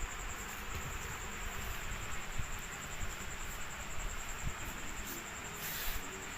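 A cricket trilling steadily at a high pitch over a low hiss of night-time ambience, with a few faint low bumps.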